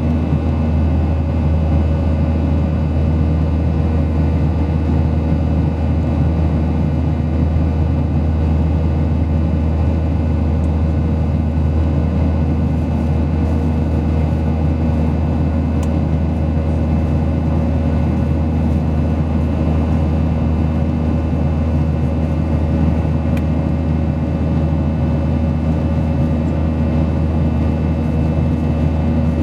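Steady cabin drone of a Boeing 737-800 airliner heard from a passenger seat: a deep, even rumble of its CFM56 turbofan engines and airflow, with several held tones over it.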